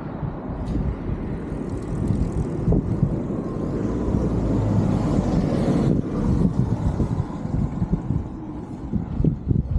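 A motor vehicle passing close by on the street. Engine and tyre noise swells to a peak mid-way and falls away suddenly about six seconds in.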